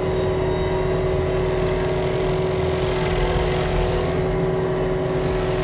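Cat SG-18B high-flow stump grinder's cutting wheel grinding into a stump, driven hydraulically by a Cat compact track loader whose engine is run up to high idle. A steady, even machine hum with a constant tone.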